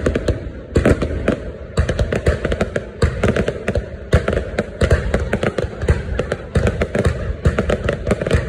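Fireworks going off in a dense, unbroken run of rapid bangs and crackles, many per second.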